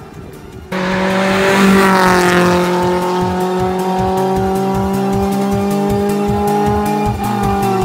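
A car engine comes in loud under a second in and holds a high, nearly steady note, with a brief dip in pitch near the end. A fast electronic music beat runs underneath.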